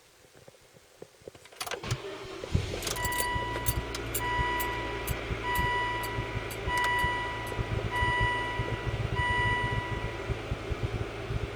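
Volvo XC90 T5's turbocharged five-cylinder engine starting about two seconds in, then idling steadily. A dashboard warning chime beeps about six times at roughly one-second intervals. The engine has been logging intermittent misfires on cylinders 2 and 5.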